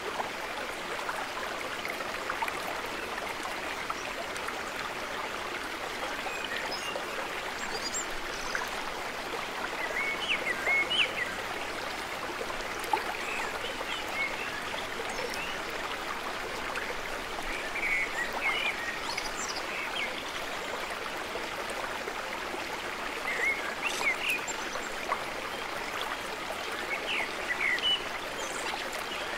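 A brook running steadily, with small birds chirping over it in several short spells.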